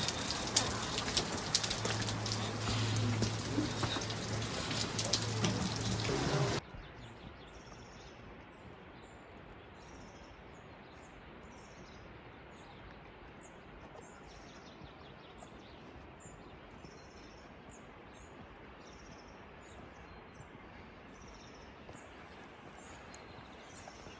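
Loud hiss of falling water with a dense crackling spatter, which cuts off suddenly about six and a half seconds in. After that it is quiet, and a small bird chirps repeatedly, about once a second.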